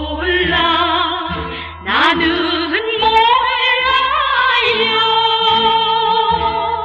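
Old Korean popular-song record by a female vocal group: a woman's voice sings with vibrato over the band, holding one long note through the second half, in a dull, narrow-band old recording.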